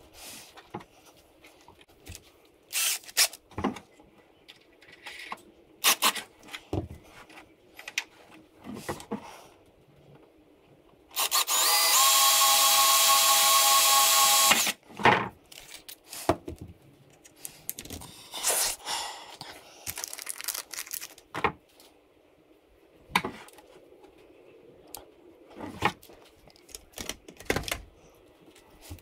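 Cordless drill running steadily for about three and a half seconds, starting about eleven seconds in, as it drills through the boat's transom to mount the rudder bracket. Around it, short scattered clicks and knocks of tools and parts being handled on the workbench.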